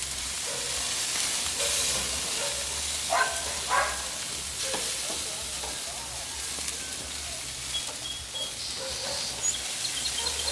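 Chicken and mushrooms sizzling steadily on a gas grill as they are turned with tongs, with two short louder sounds about three seconds in.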